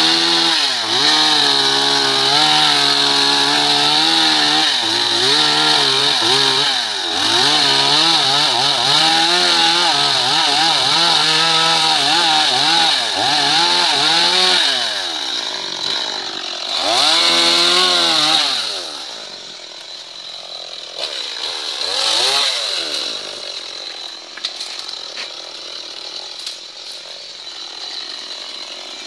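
Stihl chainsaw cutting through a log, its engine pitch wavering up and down as the chain bites. About two-thirds of the way in it is revved up and down a couple of times, then drops to a quieter idle.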